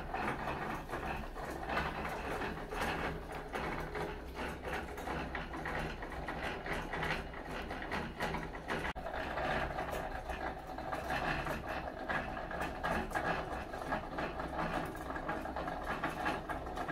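Uni-axial shake table shaking a two-story steel frame model with random white-noise motion. It makes a continuous, irregular mechanical clatter and rattle over a steady low hum.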